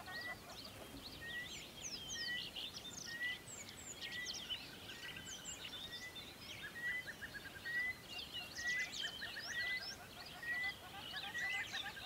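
A mix of songbirds chirping and whistling, with many quick overlapping calls, one bird repeating a short note about every two-thirds of a second, and a few brief trills in the second half.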